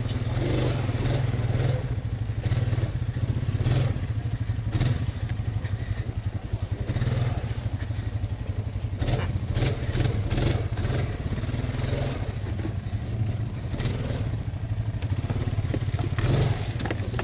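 Honda quad bike engine running under load as it climbs a steep, muddy bank, with scattered knocks and clatter from the machine working over the ruts.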